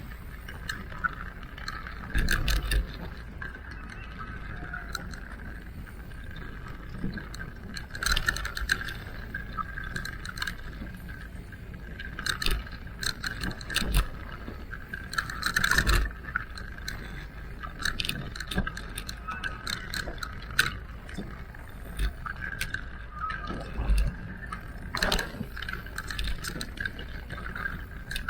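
Electric mountain bike ridden over a rough trail: a steady high whine, typical of the e-bike's drive motor, under repeated clattering and knocks as the bike hits bumps, with heavier jolts every few seconds.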